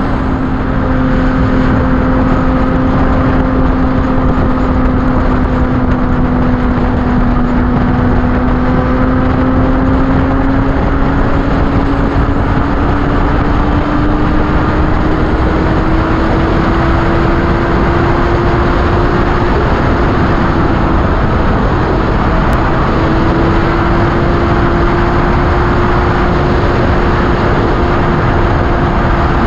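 Yamaha FZ6 inline-four engine running at steady highway cruising speed, its note climbing slowly in pitch over the first twenty seconds or so and then holding, under a heavy rush of wind noise on the microphone.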